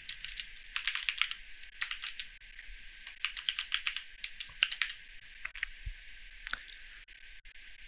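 Typing on a computer keyboard: quick runs of keystrokes with short pauses between them, thinning to a few stray taps about seven seconds in.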